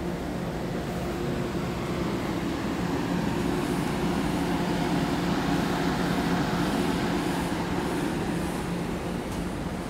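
Passenger train moving along a station platform, a steady engine drone with two low held tones over the rumble of the train, swelling a little through the middle and easing off near the end.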